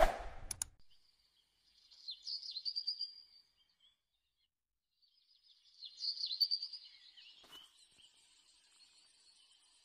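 Small birds chirping in two short spells of high, quick twittering, about two seconds in and again about six seconds in. A short pop at the very start and a single sharp click during the second spell.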